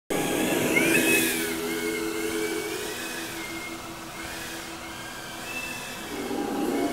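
Motors and propellers of a 2-inch FPV whoop drone whining in flight, the pitch rising and falling with the throttle, loudest about a second in.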